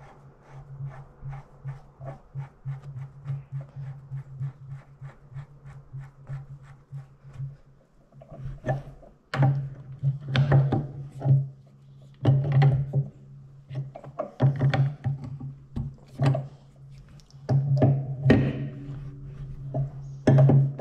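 Ratchet spanner clicking quickly and evenly, about four clicks a second, as the nuts on a traction engine's bearing cap are run down. After about eight seconds come louder, irregular knocks and clanks as a spanner tightens them, with steady background music.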